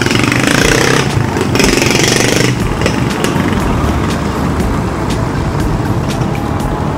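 Wind buffeting the handlebar-mounted microphone, with tyre rumble from an e-bike riding along a concrete road at about 13 km/h on pedal assist. A louder hiss runs through the first two and a half seconds, and light clicks are scattered through the rest.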